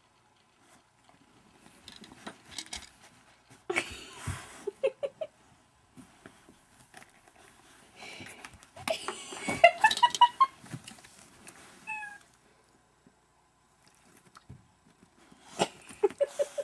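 Cat meowing from a laptop's speaker: several short meows spread through, mixed with bursts of rustling noise.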